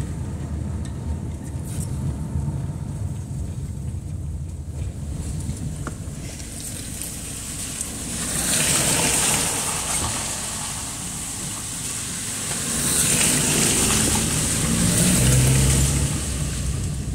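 Car driving on a wet, puddled street, heard from inside the cabin: a steady low engine and road rumble, with the tyres hissing through water twice, about eight seconds in and again from about thirteen seconds.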